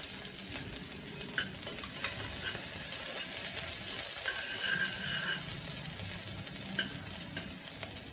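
Chopped onion and green chillies sizzling in hot oil in a pressure cooker, stirred with a spoon that scrapes and clicks against the pot.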